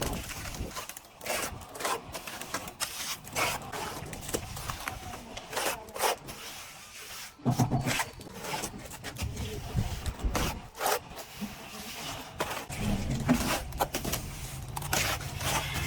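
Plastering trowel scraping across a wall in irregular strokes.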